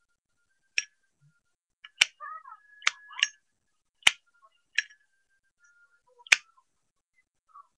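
A series of sharp, separate clicks, about seven at uneven gaps of one to two seconds.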